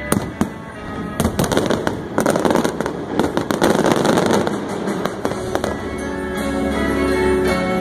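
Aerial fireworks going off in many sharp bangs, with a dense crackle in the middle, while music plays underneath.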